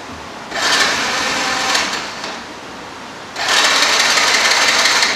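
Honda Super Cub 70's electric starter motor whirring as it cranks the engine, in two bursts of about two seconds each. The engine does not fire because the fuel cock is turned off, but the starter turns over on the new battery.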